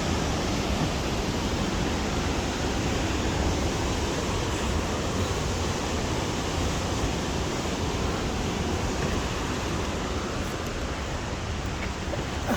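Waterfall and mountain torrent in a narrow alpine gorge, rushing water making a steady, even noise.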